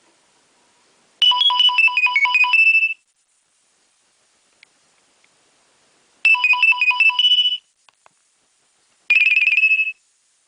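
Nokia 2300 mobile phone ringtone: three short bursts of rapid electronic notes, each lasting one to two seconds, separated by pauses of a few seconds.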